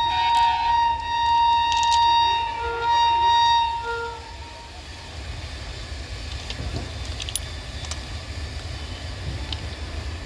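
A long, steady, high-pitched horn blast from the approaching WAG-9 electric locomotive, which stops about four seconds in. After it comes a quieter, steady low rumble as the freight train draws closer.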